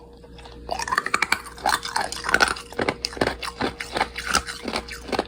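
Hard ice cubes being bitten and chewed, a dense run of sharp crunches starting about a second in and going on throughout.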